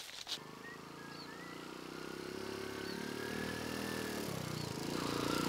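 A small underbone motorcycle engine runs steadily as the bike rides toward the listener, getting louder as it approaches, with a shift in the engine note about four seconds in.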